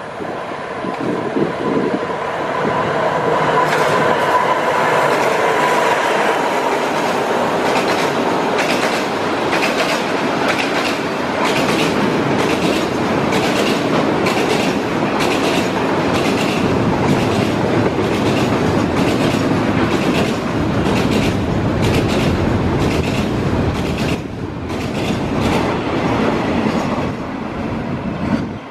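Container freight train rolling past close by: a steady rumble of the wagons with a rapid run of clicks as the wheels cross the rail joints. A steady whine sounds in the first few seconds, and the noise drops as the last van passes near the end.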